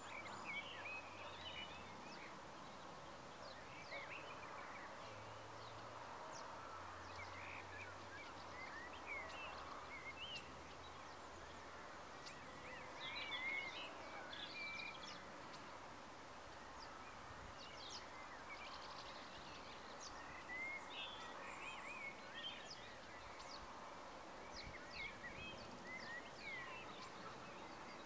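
Faint evening outdoor ambience of birds calling and chirping, with many short, scattered chirps and warbles over a steady soft background hiss.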